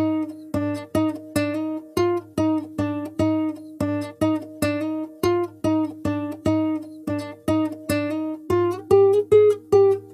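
Background music: a plucked acoustic guitar repeating a short figure, about two and a half notes a second.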